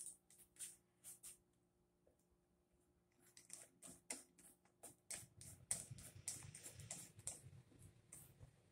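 Faint scattered clicks and ticks, with light low rubbing from about halfway through, as a hex driver is turned by hand to seat a threaded metal insert in a maple guitar neck heel.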